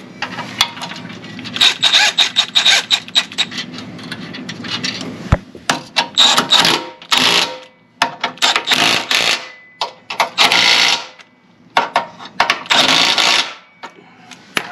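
Milwaukee cordless power tool driving nuts onto a Jeep JL rock slider's mounting bolts, in several short bursts of rapid clicking with pauses between them.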